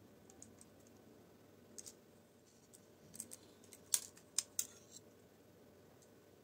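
Faint clicks and light scrapes of two metal spoons against each other as choux pastry dough is pushed off one spoon onto parchment paper. A handful of sharp clicks, grouped about three to five seconds in, the loudest about four seconds in.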